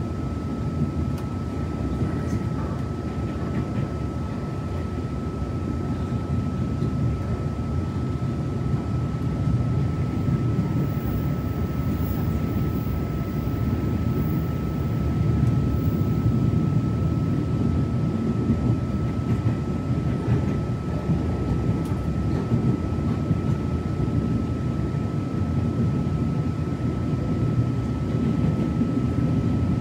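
Cabin noise of a TRA Tze-Chiang push-pull express passenger car running on the line: a steady low rumble that swells slightly midway, with a thin constant high whine over it.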